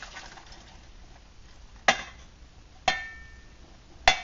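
Metal cooking pot clinking sharply against another pot three times, about a second apart, the middle knock ringing briefly, as it is emptied out.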